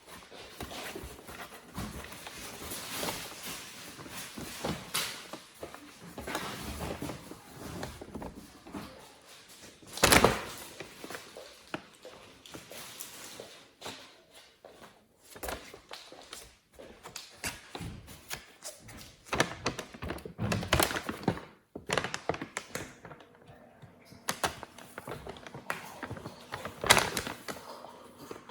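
Kittens pouncing on and batting a crinkly bag: rustling and crackling with scattered thumps and taps. The loudest thump comes about ten seconds in, another near the end.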